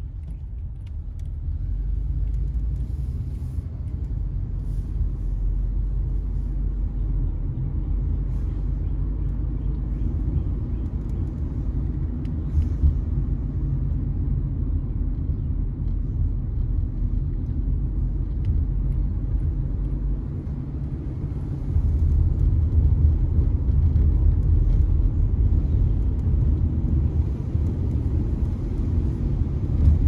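Car being driven on the road: a steady low rumble that grows louder about two-thirds of the way through.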